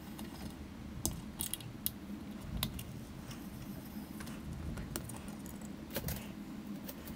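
Scattered small metallic clicks and ticks of a hex (Allen) key working the 3 mm screws out of a bookshelf speaker's coaxial midrange driver, over a low steady hum.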